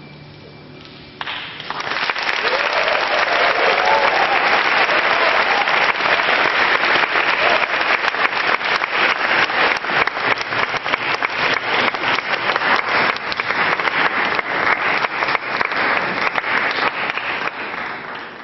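The last held violin and piano chord dies away, then audience applause breaks out about a second in, dense and steady, and thins out near the end.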